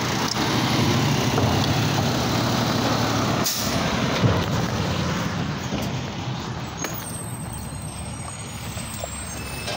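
Automated side-loader garbage truck running as it pulls away, the engine and road noise fading as it moves off down the street, with a short air-brake hiss about three and a half seconds in.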